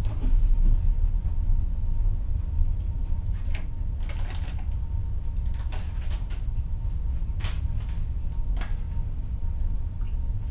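Ship's cabin ambience at sea: a steady low rumble of the moving ship and the sea against the hull, with a faint steady hum. Several short creaks and clicks come in the middle.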